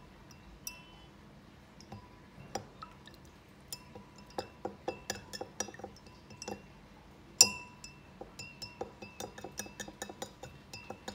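A glass container with water in it clinking again and again, each tap ringing briefly, as toilet paper is worked in the water to show it dissolving. The taps are sparse at first and come about two or three a second after a few seconds, with one sharper knock about seven seconds in the loudest.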